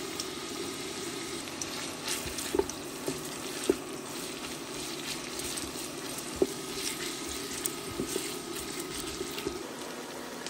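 Sliced onions frying in hot oil in a steel pot, a steady sizzle, with a wooden spatula stirring them and knocking against the pot a few times.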